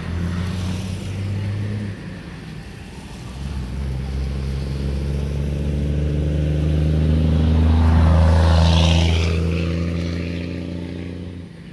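A motor vehicle engine running steadily nearby. It grows louder to a peak about two-thirds of the way through, then eases off and stops suddenly near the end.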